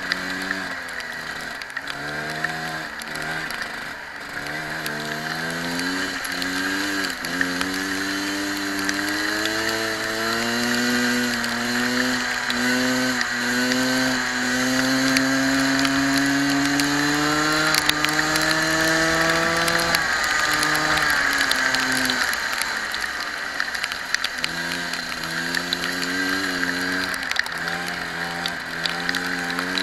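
Go-kart engine at racing speed, heard onboard: after several short revs, its pitch climbs for a long stretch, drops sharply about two-thirds of the way through as the kart slows, then rises and falls in short bursts again.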